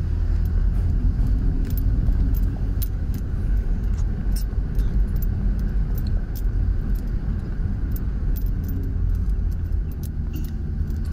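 Car cabin noise while driving: a steady low rumble of engine and tyres on the road, with scattered small ticks and rattles.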